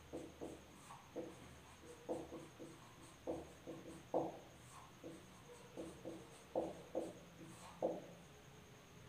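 Marker pen squeaking and rubbing across a whiteboard in a run of short, irregular strokes, two or three a second, as words are written.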